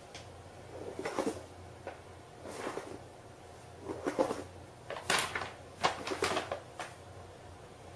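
Paper bag rustling in short bursts as a cat shifts about inside it, with about seven crinkles, the loudest around the middle.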